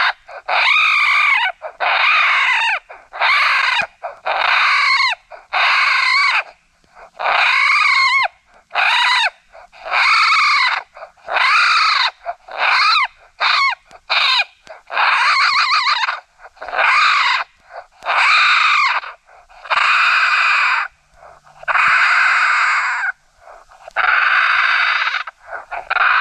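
Raccoon brawl call: a run of squalling cries imitating adult raccoons fighting, about one cry a second, each rising and falling in pitch. Partway through, the cries turn rougher and more screeching.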